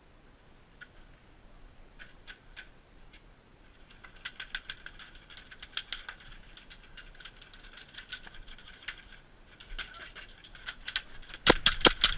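Airsoft guns firing: scattered single shots at first, then a steadier run of several shots a second, and a loud rapid string of about ten shots near the end.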